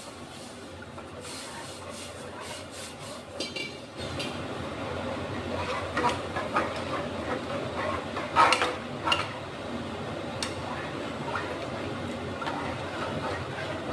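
Kitchen cooking sounds: a metal utensil clinks and knocks against a pot several times, the loudest strikes a little past the middle, over a steady rushing background noise that grows louder about four seconds in.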